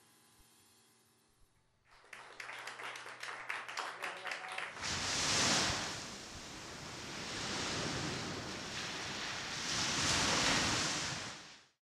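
The last chord of the small jazz band dies away, then a small audience claps for about three seconds. Then surf washes onto a sandy beach in three slow swells, fading out just before the end.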